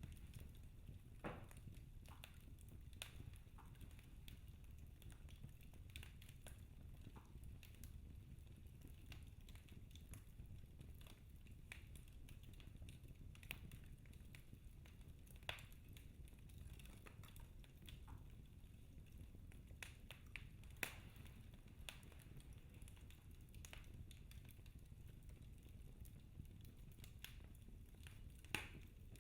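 Wood fire crackling in a fireplace: faint scattered pops and snaps over a low, steady rumble, with a few sharper snaps.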